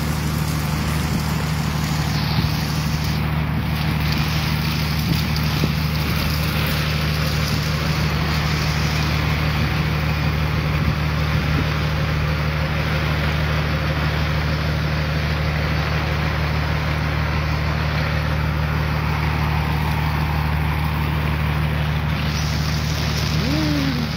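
Steady heavy rain falling and pattering on an umbrella held overhead, with wind buffeting the microphone.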